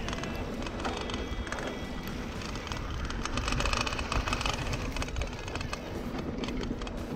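Mountain bike rolling fast over a dry dirt singletrack: tyre noise on the dirt with frequent clicks and rattles from the bike over bumps, and wind rumbling on the microphone.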